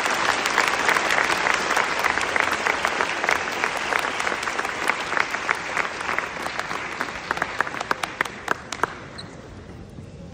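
Audience applauding: dense clapping that thins to a few scattered claps and dies away about nine seconds in.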